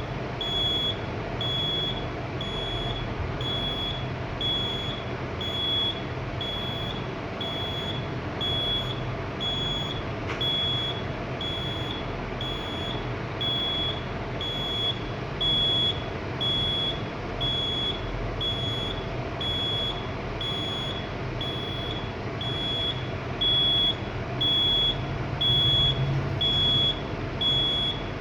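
Fire alarm system sounder beeping: one high-pitched tone repeating evenly about every two-thirds of a second, somewhat louder near the end, over a steady low background hum.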